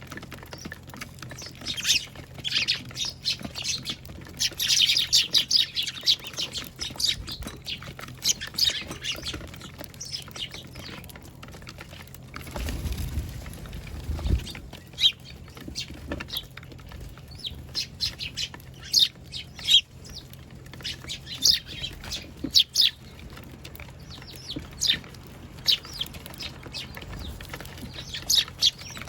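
A flock of Eurasian tree sparrows chirping, many short calls overlapping, busiest about five seconds in. A low rumble cuts in briefly near the middle.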